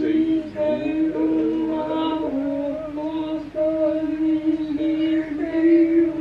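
Voices singing slow, drawn-out held notes, the pitch shifting every second or two.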